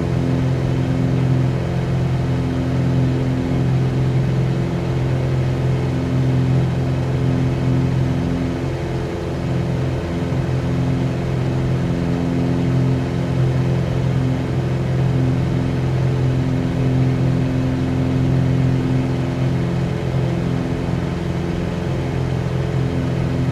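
Cessna 182Q's six-cylinder Continental O-470 engine and propeller running steadily at low power while the plane taxis after landing.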